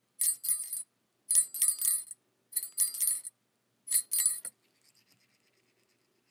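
Small metal bells ringing in four short jingling bursts, about a second apart.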